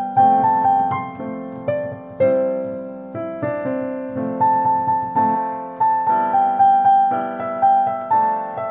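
Background piano music: a gentle melody of struck notes, each fading away, over lower chord notes.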